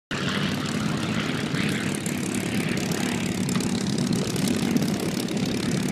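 A single-engine WWII propeller fighter's piston engine runs at a steady low drone as the plane taxis.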